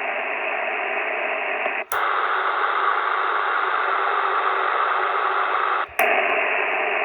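Receiver band noise: a steady hiss from a 10 meter SSB radio tuned with no station on frequency. About two seconds in, a click and a brief dropout, then the hiss turns brighter and louder for about four seconds, until a second click brings back the first, duller hiss.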